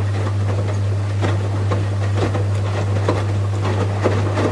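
Washing machine running: a steady low hum under irregular short knocks and rattles.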